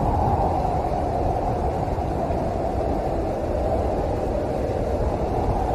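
Storm ambience: a steady, deep rushing noise, even throughout, with no thunderclaps.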